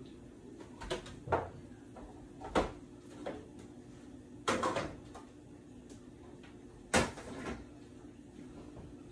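Kitchen handling noises: a series of separate knocks and clinks as plates, a frying pan and utensils are set down and moved on the counter and stovetop. There are about seven of them, with a longer clatter a little past the middle and another sharp knock a couple of seconds later, over a low steady hum.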